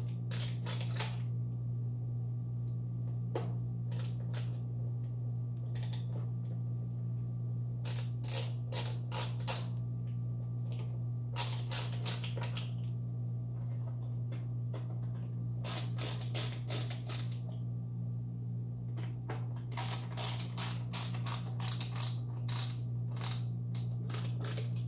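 Hand screwdriver clicking in short bursts as screws are driven into a Onewheel Pint's rails to hold a skid plate, over a steady low hum.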